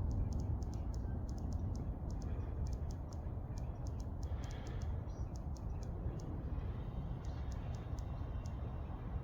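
Rapid, unevenly spaced high-pitched clicks in irregular groups, a Morse-code-like pattern picked up by the phone, over a steady low rumble.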